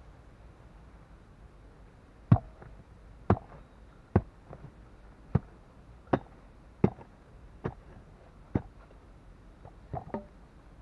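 A short-handled hand hoe chopping into hard dirt, with about ten strokes roughly a second apart, the last two in quick succession.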